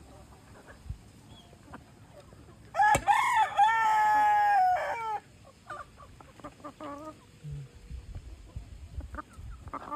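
A rooster crows once, a loud call of about two and a half seconds starting near three seconds in. Short clucking calls from the chickens follow.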